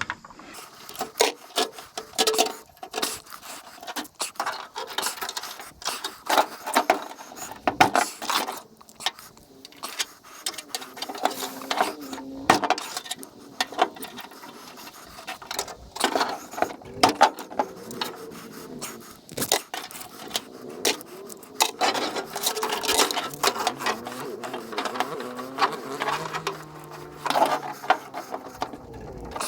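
Irregular clanks, knocks and scrapes of scrap metal being handled and sorted, with pieces striking one another and being dropped into piles.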